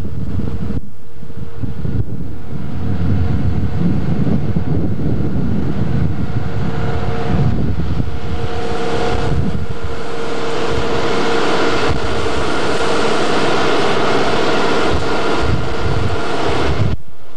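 Small boat's motor running steadily with wind rushing on the microphone; the rush of noise grows louder about eight seconds in.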